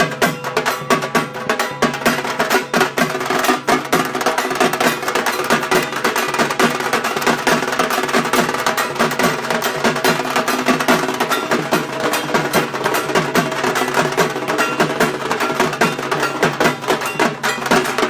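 Dhak drums beaten in a fast, dense, unbroken rhythm, with a few steady pitched notes beneath.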